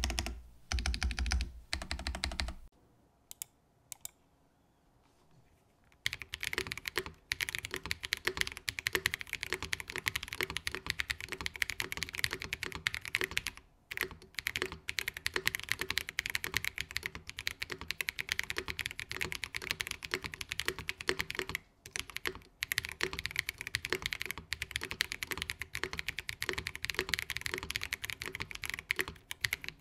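Mode Sonnet mechanical keyboard typed on at a steady pace: a dense clatter of keystrokes from Glorious Panda tactile switches under PBT keycaps. The carbon fiber plate build is heard first. After a few seconds of near quiet, the polycarbonate plate build is typed on, with two short breaks along the way.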